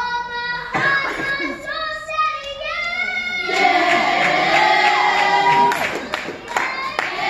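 Children's gospel choir singing, with fewer voices in the first half and the fuller, louder choir from about halfway through.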